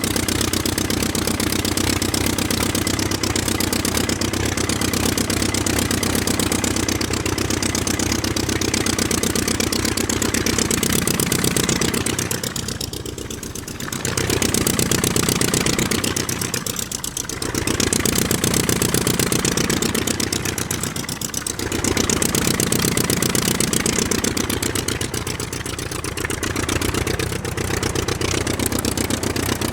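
Aircraft jet engines running with a steady, loud whine and rush of noise, dipping briefly in level three times.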